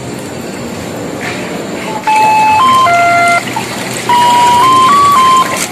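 A mobile phone ringing: a simple electronic ringtone tune of clear, stepped beeping notes starts about two seconds in, its short phrase repeating. Under it runs a low, steady hum of background noise.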